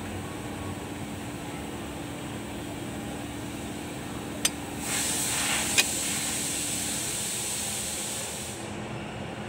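Two sharp metallic clicks about a second apart, halfway through, as driveshaft parts and a clamp are handled on a workbench. Over a steady background hum, a rushing hiss swells up around them for a few seconds, then fades.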